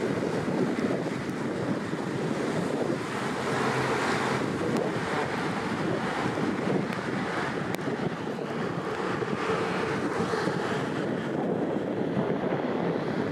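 Steady wind buffeting the microphone over the rush of waves and wake water, an even rushing noise with no distinct events.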